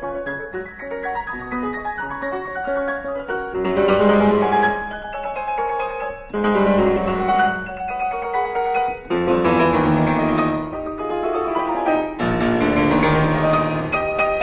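Background piano music: a flowing run of notes, with the playing swelling louder about every three seconds.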